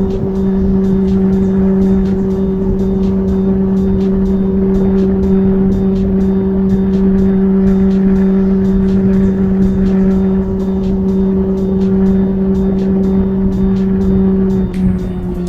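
Kawasaki ZX-6R's inline-four engine running at a steady pitch at constant speed, with wind rumble on the microphone. The pitch dips slightly near the end.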